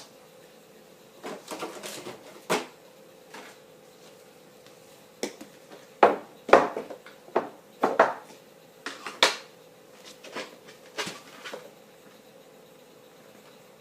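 Dishes and utensils clinking and knocking, irregular sharp strikes bunched in the middle, over a faint steady hum.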